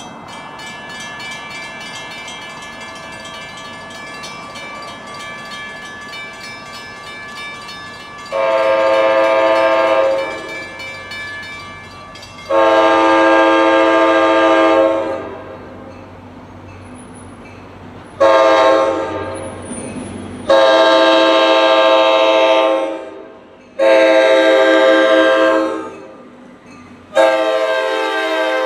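NJ Transit GP40PH-2B diesel locomotive's K5LA five-chime air horn sounding six blasts as the train approaches: two long, one short, then three long. A quieter steady sound from the approaching train runs beneath.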